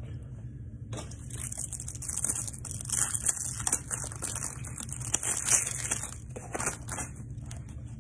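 Crinkling, crackling handling noise with many irregular sharp clicks, starting about a second in and dying away near the end.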